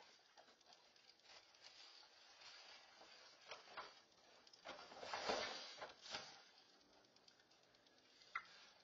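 Faint rustling and crinkling of garbage bags and wrappers as black bears rummage through spilled trash from an overturned bin, with scattered light clicks. The rustling is busiest about five seconds in, and there is a single sharp click near the end.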